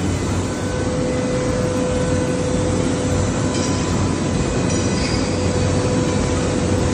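Pipe-end upset forging machinery running steadily: a continuous hum with a steady tone over even machine noise, with no distinct blows.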